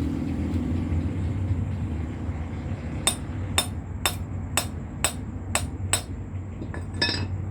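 Seven sharp hammer taps about two a second, then a quick cluster of hits near the end, over a steady low rumble.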